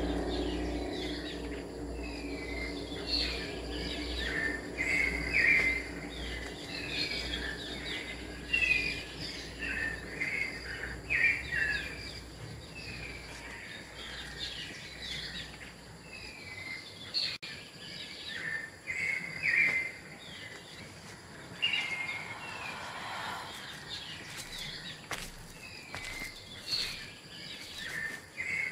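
Birds chirping in forest ambience: short, repeated high calls, at times several a second, over a steady background hiss. A low drone fades out over the first few seconds.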